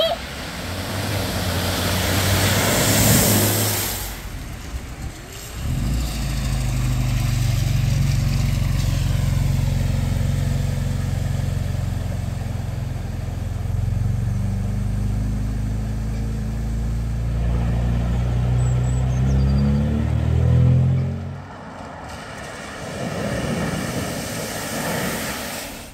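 Cars driving through a flooded road. First comes water spray as one car ploughs through, then a classic Mini's engine running steadily as it wades through the floodwater, its pitch rising toward the end. Near the end another car hits the water with a big splash.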